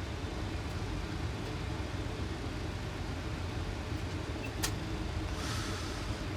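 Boeing 737 flight deck in flight on approach: a steady rush of airflow and air conditioning, with a single sharp click about four and a half seconds in.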